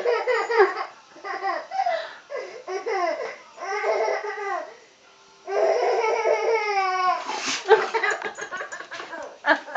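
A baby laughing hard in repeated fits of high-pitched belly laughs, with a short pause about five seconds in.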